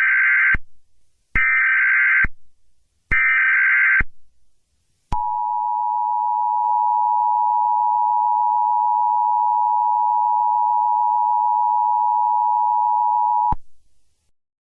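Emergency Alert System alert tones: three short bursts of buzzing SAME header data, about a second apart, then the EAS attention signal, a steady two-tone beep held for about eight seconds that cuts off suddenly.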